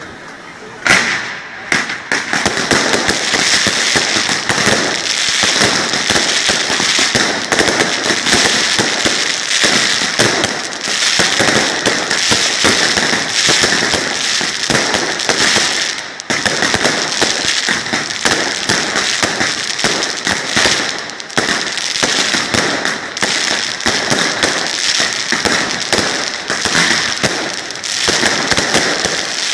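A festival batteria, a long chain of firecrackers strung on wires across a square, going off in a dense, rapid crackle of bangs that sets in with a sharp bang about a second in and barely lets up, dipping briefly about halfway through.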